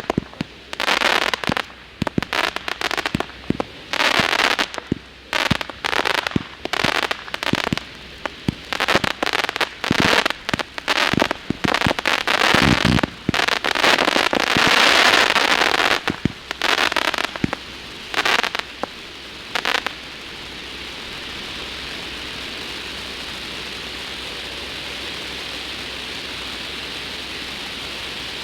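Low-noise retail firework cakes firing in quick succession: rapid crackles, pops and hissing bursts. The firing stops about twenty seconds in and is followed by a steady hiss.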